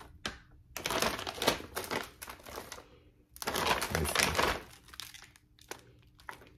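Plastic packaging of frozen Korean stir-fried rice cakes crinkling as it is handled, in two spells of a couple of seconds each, with small clicks between.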